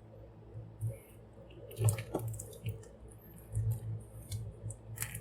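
Plastic action figure being handled as a large wing is forced into its socket on the figure's back: scattered clicks and scrapes of plastic, the clearest about two seconds in and near the end.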